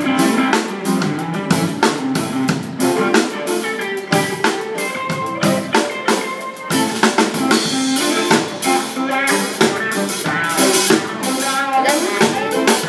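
Live band playing: electric guitars over a drum kit keeping a steady beat.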